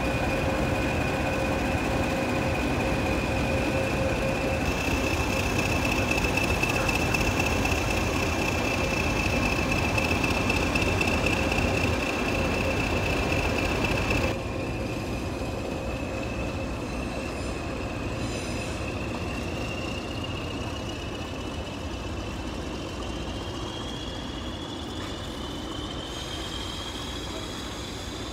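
English Electric Class 20 diesel locomotives running past under power, a heavy engine rumble with a high, steady whistle over it. About halfway the sound drops a step, and the whistle then climbs slowly in pitch as the locomotives draw away.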